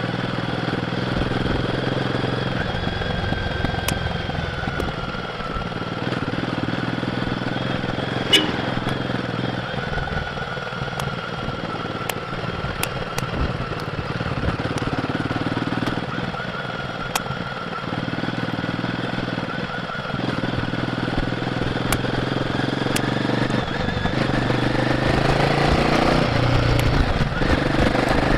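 Royal Enfield Guerrilla 450's single-cylinder engine running through its stock exhaust while riding, with wind and road noise and a sharp click about eight seconds in. The engine note rises and gets louder near the end.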